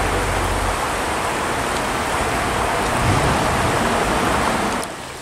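Shallow creek water rushing and splashing over stones, a steady hiss that drops off abruptly near the end to a quieter trickle.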